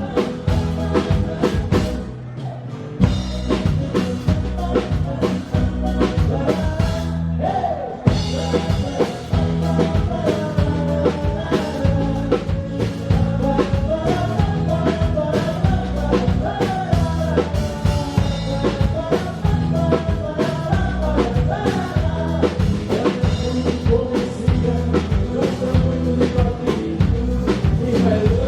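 Live band playing a song on stage, with drum kit, bass and a singing voice carrying the melody. The band drops out briefly twice early on and comes back in each time on a sharp drum hit.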